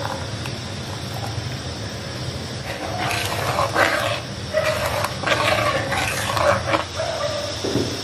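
A dog giving a run of short calls, bunched from about three seconds in to near the end, over a steady low hum.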